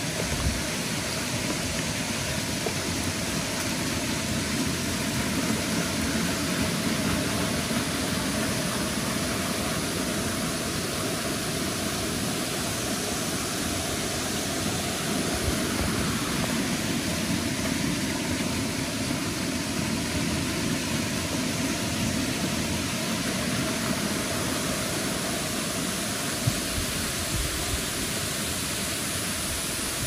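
Waterfall: falling water rushing steadily.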